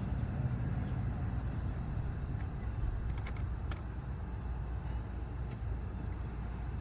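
Steady low background rumble, with a few faint light clicks about halfway through.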